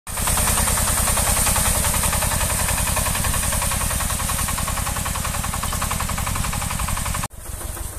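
Shifeng SF-240 mini tractor's engine running steadily under load as it drags segment harrows across the field, with a fast, even firing beat. It cuts off suddenly near the end.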